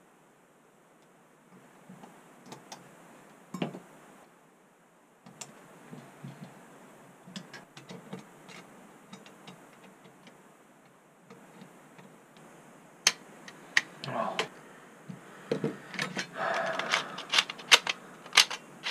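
Small metal parts of a 3.5-inch floppy drive clicking, tapping and rattling as the drive is reassembled by hand. There are a few scattered ticks at first, then a quick run of sharp clicks and knocks over the last six seconds or so.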